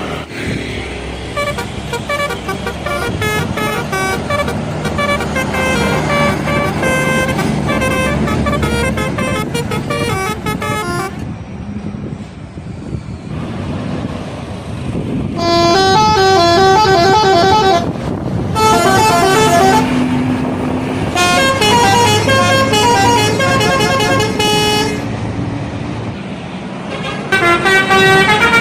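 Indonesian bus telolet horns, multi-tone musical horns playing quick tunes of short stepped notes in several loud bursts, with a lull about halfway through. A bus engine runs underneath.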